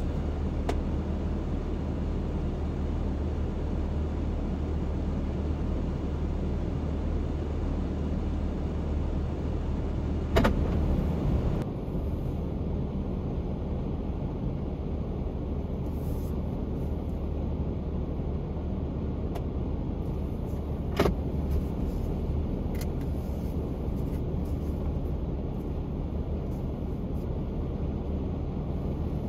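A van's engine running with a steady low hum, heard from inside the cab, with a sharp click about ten seconds in and another about twenty-one seconds in.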